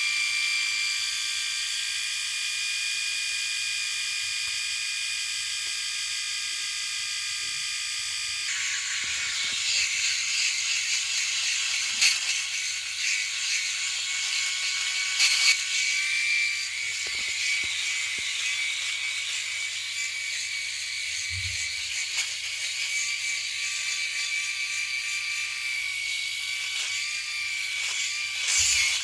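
Electric shaver running with a steady high buzz. About eight seconds in the buzz turns rougher and noisier, with scattered clicks.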